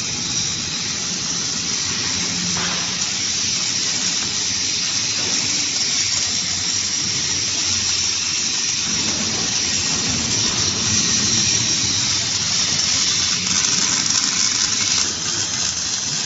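Electric arc welding on heavy steel plate: a steady hiss from the arc.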